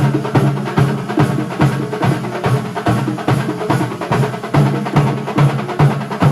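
Kerala thambolam percussion ensemble playing drums in a fast, driving rhythm: dense strokes with strong low beats about two to three times a second.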